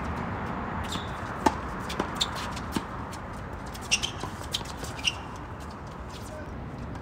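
Tennis ball hit back and forth in a doubles rally on a hard court: a string of sharp pops from racket strokes and ball bounces, the loudest about a second and a half in, with the pops stopping after about five seconds.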